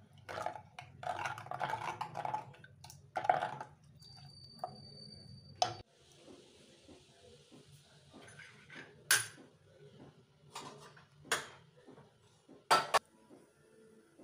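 Metal ladle stirring liquid in a clay pot, clinking and scraping against the pot's sides for the first few seconds, followed by a few separate sharp clicks.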